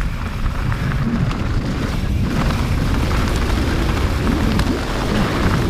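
Mountain bike riding down a rough trail: a steady rush of wind over the microphone mixed with tyres rolling over dirt and stones. Scattered short clicks and knocks come from the bike rattling over the ground.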